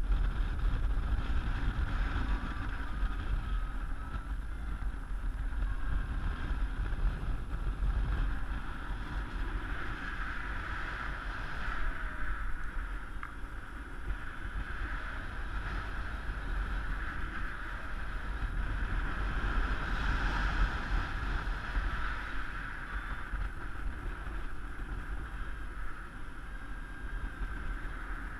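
Wind rushing over the microphone of a camera on a paraglider in flight: a continuous low rumble with a hiss that swells twice, about a third and two thirds of the way through.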